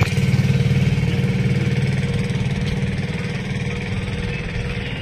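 An engine running steadily with a low hum that slowly fades.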